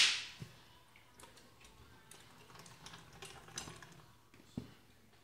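A short, sharp squirt from a squeezed conditioner bottle right at the start, fading within half a second, then faint scattered clicks and taps of containers and utensils being handled.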